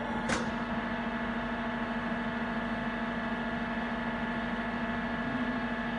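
Mori Seiki TL-40 CNC lathe running with a steady, even hum of several constant tones while its programmable steady rest moves its arms. There is a single short click just after the start.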